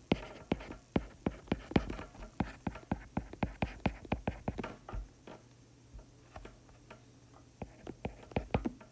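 Stylus tip tapping and clicking on a tablet screen during handwriting: a quick, uneven run of sharp taps, with a pause of about two seconds past the middle before the taps pick up again.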